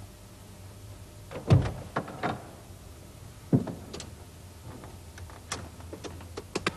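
Thumps and knocks in the cab of a Ford ambulance as a man climbs into the driver's seat, then a run of short sharp clicks from the dashboard switches near the end.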